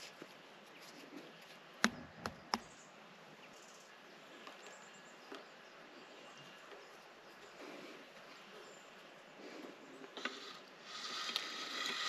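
A few sharp knocks about two seconds in against a quiet background. Near the end a hand-cranked pasta machine starts turning, its rollers and gears clicking rapidly and evenly as dough is fed through.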